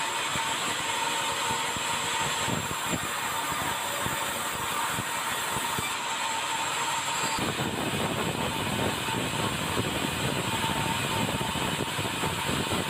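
Steady vehicle noise with a constant whine; the low rumble thickens about seven and a half seconds in.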